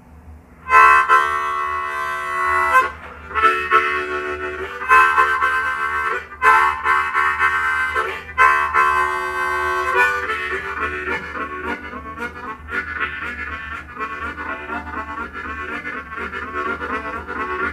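Diatonic blues harmonica in G playing a train imitation. It opens with a series of long held chords, each about a second and a half, then from about ten seconds in settles into a quicker, steady chugging rhythm.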